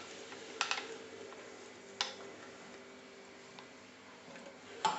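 A few sharp taps of a spoon against a vessel: a pair just under a second in, one about two seconds in, and a cluster near the end. A faint steady hum lies under them.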